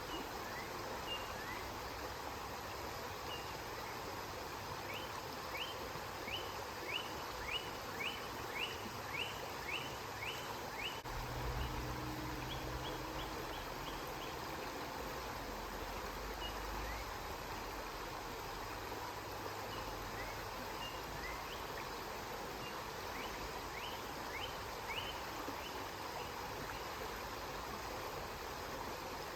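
River water flowing steadily. Over it a bird gives runs of short, high, repeated chirps, about two a second, and a low rumble comes and goes about a third of the way in.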